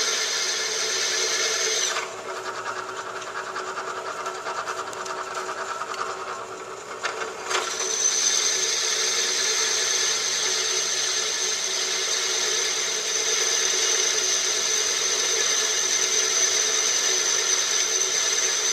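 Power drill with a DeWalt bit boring through metal, the motor running steadily with a high whine. For about five seconds, starting a couple of seconds in, the whine drops out and the sound gets quieter, then it picks back up.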